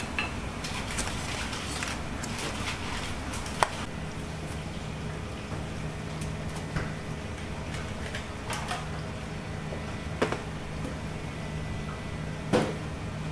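Restaurant kitchen at work: a steady low hum of kitchen equipment, with scattered clicks and knocks of plastic takeout containers and utensils being handled. The sharpest knock is about three and a half seconds in.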